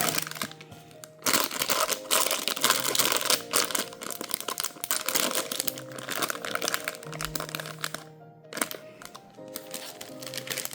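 Background music with packaging crinkling and rustling as it is handled and opened, heaviest in the first few seconds.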